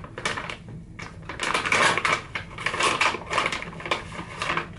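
A plastic snack bag being handled and torn open, crinkling and crackling in irregular bursts, busiest from about a second and a half in until just before the end.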